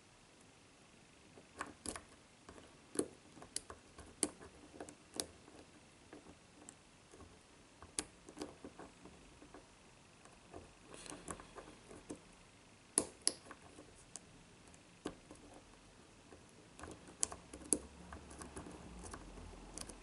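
Lock-picking in a brass padlock: a narrow hook and tension wrench working the pins in the keyway, giving faint, irregular small metallic clicks, some in quick little clusters.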